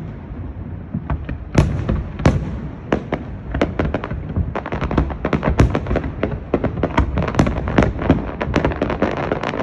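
Fireworks display: sharp bangs of bursting shells, a few well spaced at first, then coming thick and fast, several a second, from about four seconds in, over a steady low rumble.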